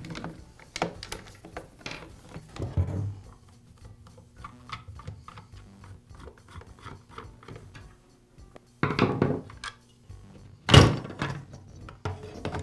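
Hands working on a plastic-bodied Poulan chainsaw: a screwdriver clicks and rubs as the top-handle screws come out, and the saw's housing knocks and scrapes as it is turned over. There is a short rustle about nine seconds in, and a loud thunk on the wooden workbench just before eleven seconds.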